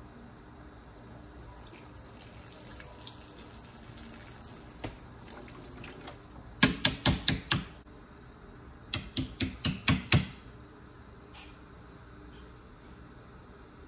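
Kitchen faucet water running for a few seconds, then two quick runs of sharp taps, six or seven each, a little over a second apart.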